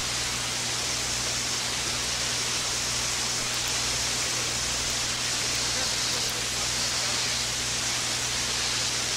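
Steady hiss with a low electrical hum underneath, the noise floor of an old live recording with no playing or talking.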